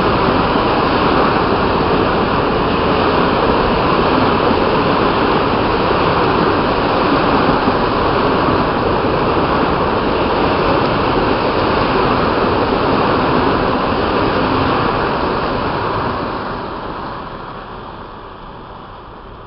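Freight train of hopper wagons rolling past close by: a loud, steady rumble of steel wheels on the rails. It fades away over the last few seconds as the end of the train draws off down the line.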